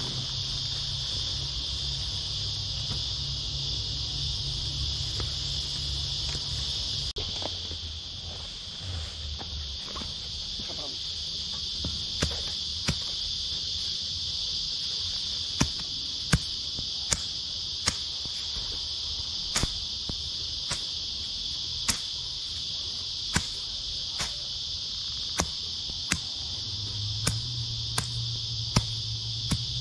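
A steady, high-pitched insect chorus. From about twelve seconds in, it is broken by sharp strikes of a digging tool into the ground, roughly one a second.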